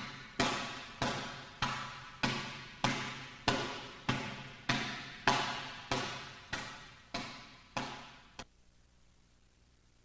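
An open palm repeatedly slapping down onto an iron-palm training bag, about fourteen even strikes at a steady rhythm of a little under two per second, each echoing in the hall. The strikes stop about eight and a half seconds in, leaving faint hiss.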